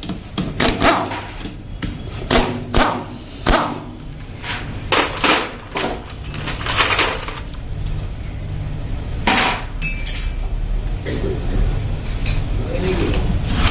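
Metal hand tools clanking and striking against motorcycle engine parts in irregular clusters of sharp knocks, with one ringing metallic strike about nine seconds in.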